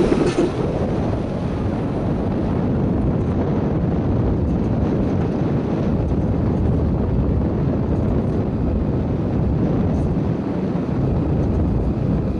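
Steady rushing, rumbling wind noise over the onboard camera of a high-power carbon fiber rocket as it falls back toward the ground.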